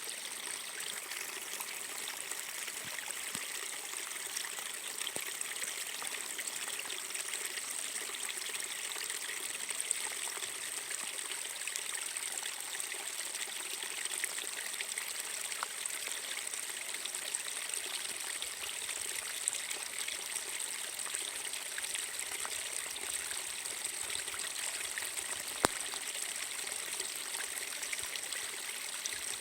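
A tiny waterfall trickling: a steady, even splashing of a thin stream of falling water, with an occasional brief click.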